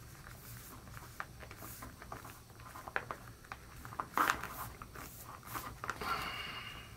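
Handling of a foil dehydrated-ration pouch: scattered small crinkles and taps, a louder brief rustle about four seconds in, and a longer rustle near the end.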